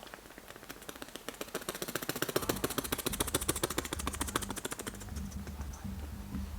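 A rapid, even rattle of clicks, about a dozen a second, fading out about five seconds in, with a low hum coming in underneath partway through.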